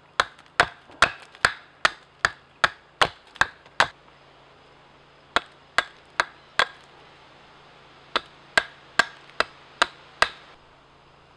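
Hatchet blows biting into the end of a wooden log, which is being chopped flat so it stands stable. The blows come in three runs of steady, evenly spaced strokes, about two and a half a second, with short pauses between runs.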